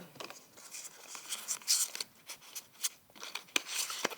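Pokémon booster pack foil wrapper and trading cards rustling and crinkling as they are handled, with irregular crackles and short slides.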